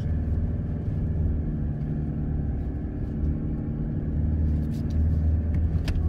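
Four-wheel-drive vehicle driving on soft beach sand, heard from inside the cabin: a steady low engine and drivetrain rumble, with a few sharp clicks near the end.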